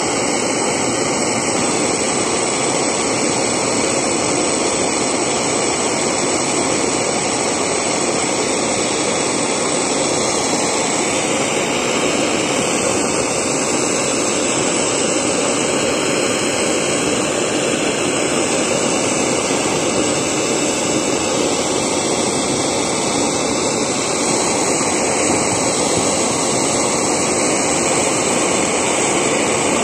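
1949 Spit-Fire A-100 alcohol blowtorch burning steadily, its flame jet making an even, constant rush of noise.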